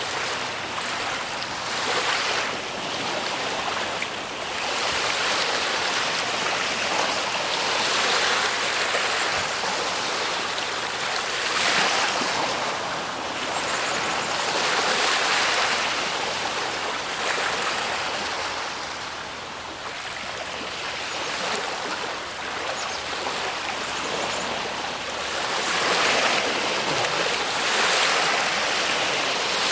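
Ocean waves washing onto a shore: a continuous rush of surf that swells and eases every few seconds.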